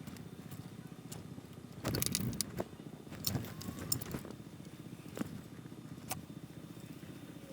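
Scattered light clicks and knocks of a circuit board, parts and tools being handled at a workbench while potentiometers are soldered onto a synth PCB, the busiest cluster about two seconds in, over a low steady background hum.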